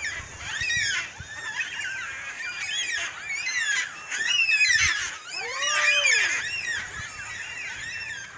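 A flock of black cockatoos calling in flight: many overlapping, drawn-out calls that rise and fall in pitch, with one lower, longer call just past the middle.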